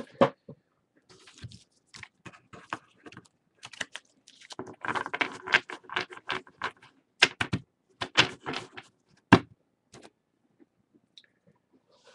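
Trading cards being handled and sorted on a table: irregular crisp clicks and flicks of card stock, with a dense run of quick clicking about five seconds in and a few sharper taps after it, thinning out near the end.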